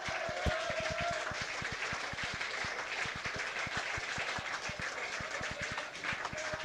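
Live concert audience clapping and cheering, with a few shouts, just as the band's sustained final chord stops at the start.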